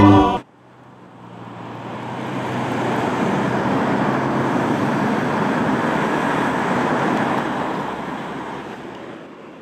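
A choir's held chord cuts off about half a second in. Road traffic noise then fades in, holds steady as an even rush with a faint low hum, and fades away near the end.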